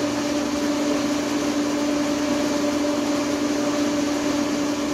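A TIG welder's water cooler pump and an induction heater's cooling fan running together: a steady hum over an even whirring hiss. The pump is circulating cooling water through the induction coil's copper tubes.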